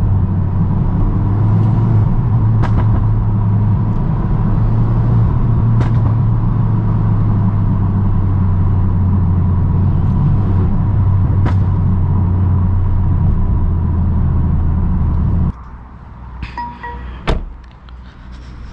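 Steady low drone inside the cabin of a 2020 Mercedes-AMG A35 saloon cruising in third gear: its turbocharged 2.0-litre four-cylinder engine, stage 1 tuned with the rear silencer deleted, under road noise. About fifteen seconds in it cuts off abruptly to much quieter outdoor sound with a single sharp click.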